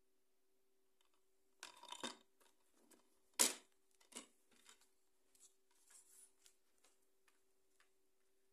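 Black plastic DVD keep case being handled and opened: a brief rustle of handling, then one sharp plastic click about three and a half seconds in as the case opens, followed by lighter clicks and taps against the plastic. A faint steady hum sits underneath.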